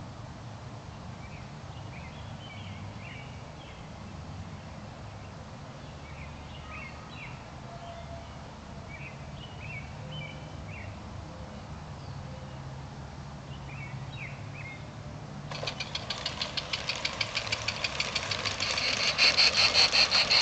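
Birds chirping over a steady low hum; about fifteen seconds in, an LGB garden-railway train comes through with a fast, even clatter that grows loud as it passes close by.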